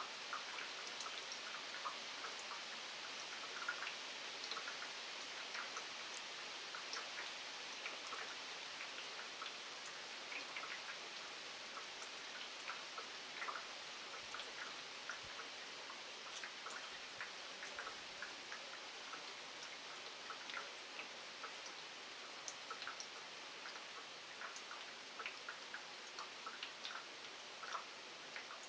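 Steady rain falling on wet pavement: an even hiss with many separate drops ticking and splashing.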